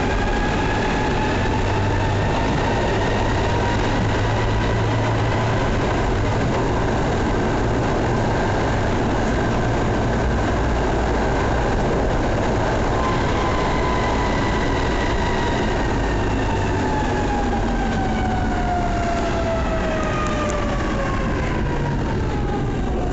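Tatra tram's traction motors whining over the rumble of wheels on rail: the pitch rises slightly and holds while the tram runs at speed, then glides steadily down from about halfway as it slows.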